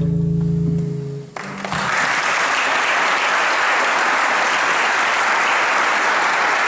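The band's final held chord fades out about a second in, and then the audience breaks into steady applause.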